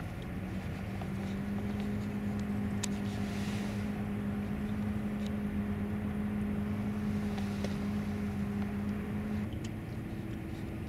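Yamaha 9.9 hp outboard motor running at a steady speed: an even hum over a low rumble, its pitch changing near the end.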